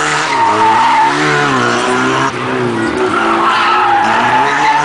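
A small car's engine revving up and dropping back several times as it slides hard through turns, with tyres squealing.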